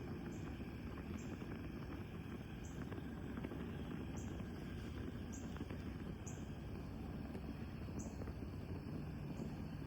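Fire burning in a fireplace: a steady low rumble with a few faint crackles. A short, high chirp repeats about once a second.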